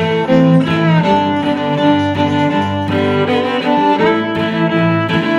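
Background music led by bowed strings, held notes changing every second or so.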